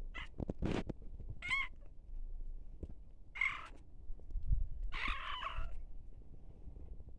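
Long-haired tabby cat meowing four times in short calls, the last, about five seconds in, the longest and loudest.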